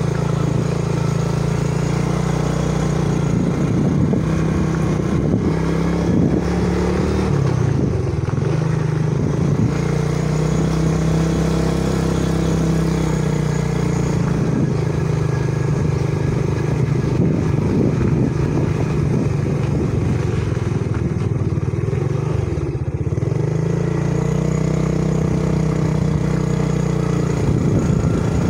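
Small motorcycle engine running under way, its note rising and falling several times as the throttle is opened and eased, over a steady rush of wind and road noise.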